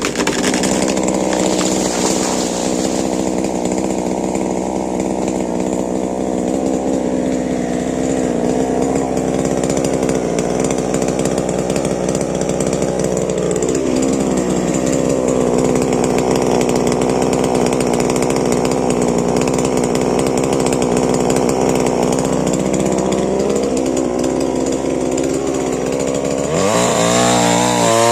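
Stihl MS 881 two-stroke chainsaw running at high revs, cutting into tamarind wood. Its pitch sags briefly about halfway through and recovers, then rises sharply near the end as the engine revs up.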